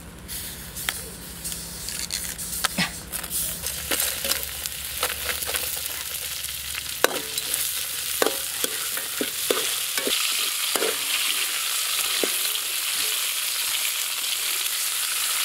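Beetles stir-frying in a steel wok: a sizzling hiss that grows stronger partway through, with sharp scrapes and knocks of the metal spatula against the wok.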